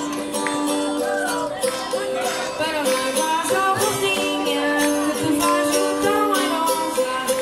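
Live Madeiran folk music: small plucked guitars and jingling percussion keeping a steady beat, with voices singing.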